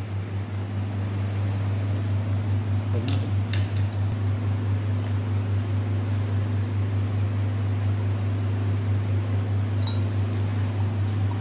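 Steady low mechanical hum of a fan or motor, with a couple of faint clinks of glassware about three seconds in and again near the end.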